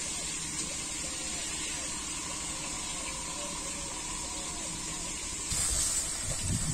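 Tilapia pieces frying in oil in a karai, a steady sizzle. About five and a half seconds in, it gives way to louder, rougher noise.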